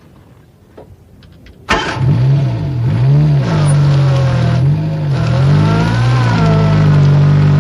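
Old 1960s Ford Águila's engine being started: a few faint clicks, then about two seconds in the engine bursts into life, its pitch swinging up and down unevenly at first before it settles and runs steadily, with a brief rise in revs later on.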